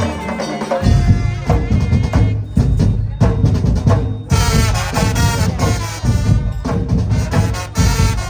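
Ensemble music at a rehearsal: drums and percussion playing a fast, steady beat under pitched melodic instruments, with the heavy drums coming in about a second in.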